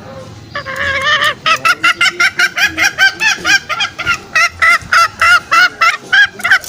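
Green junglefowl calling in a fast, even run of short, loud, repeated notes, about three or four a second, starting about half a second in.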